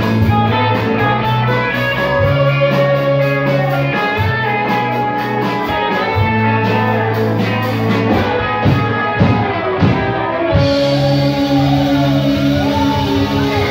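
Live rock band playing, electric guitars over bass guitar and a drum kit. The sound changes abruptly about ten and a half seconds in.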